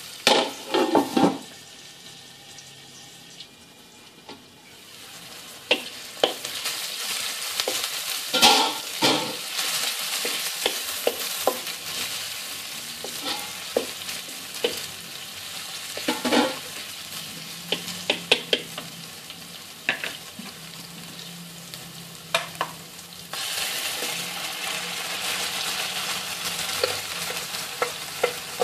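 Sliced onions sizzling in hot oil in a metal wok, with a spatula repeatedly scraping and clacking against the wok as they are stirred. The sizzling steps up louder about five seconds before the end.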